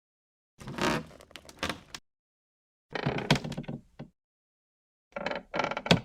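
Wood creaking and cracking under strain: three separate creaks of about a second each, with sharp crackles inside them.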